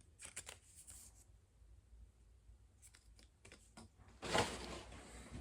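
Plastic packaging being handled while unpacking a box: light rustles, clicks and taps, then louder crinkling from about four seconds in.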